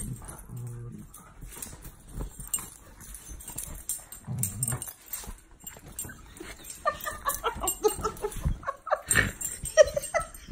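Two border collies play-wrestling, giving low growls at the start and again about four seconds in, then a run of higher whimpers and yips over the rustle of bedding.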